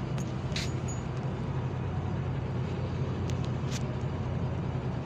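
Steady low mechanical hum from a stationary truck, with a few faint clicks.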